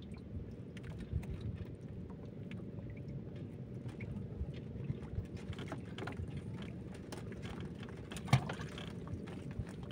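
Small clicks and taps of hands handling a fishing line and hook aboard a small wooden boat, over a steady low hum. One louder knock comes a little after eight seconds in.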